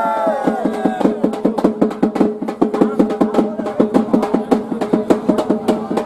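Festival drums beaten in a fast, even rhythm from about a second in, over a steady held tone. In the first second a wavering melodic sound trails off.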